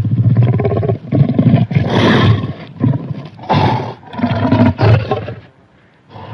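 Cartoon alligator roaring: a run of loud, rough, growling roars in quick succession with short breaks, dying down to a lull near the end.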